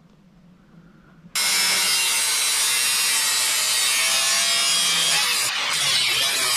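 Angle grinder cutting through thin sheet metal: a loud, steady grinding hiss of the wheel in the metal that starts abruptly about a second and a half in.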